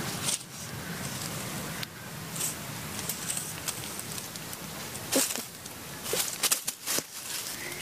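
Dry leaves and twigs rustling and crackling as a cat pushes its head into the leaf litter, with a few sharper snaps between about five and seven seconds in.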